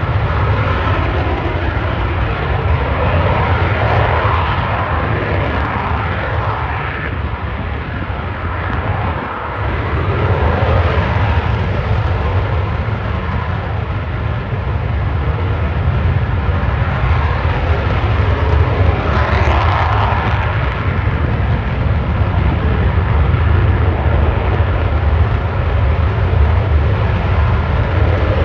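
Eurofighter Typhoon's twin EJ200 jet engines running loud and continuous, a deep rumble with a rushing roar over it. The roar sweeps up and down in pitch about four seconds in and again near twenty seconds.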